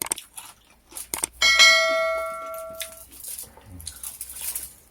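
A single bell-like ding that rings out clearly and fades over about a second and a half, coming about a second and a half in, after a few sharp clicks.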